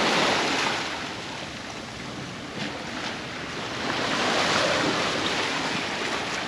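Sea surf breaking and washing up the beach, surging twice: loudest at the start and again about four seconds in, easing off in between.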